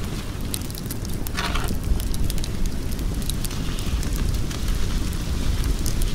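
Wood fire crackling, with many small sharp pops scattered over a low steady rumble, and a brief hiss about a second and a half in.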